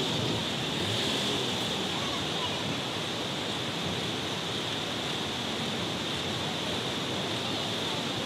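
Steady rushing noise, with a constant high hiss over it and faint voices of people standing around.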